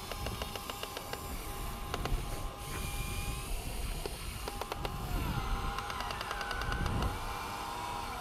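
Huina RC excavator's electric motors and gears working as the arm swings and dumps a load, with rapid mechanical clicking for the first second and a half and in short runs later. A motor whine rises and falls in pitch in the second half.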